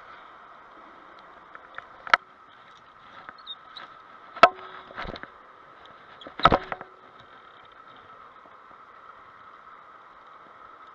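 A few sharp knocks and clacks over a steady hiss, the loudest about four and a half and six and a half seconds in.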